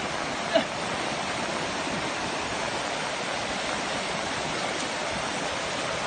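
Steady rushing of water tumbling over a rocky cascade of a waterfall. A brief voice cuts in about half a second in.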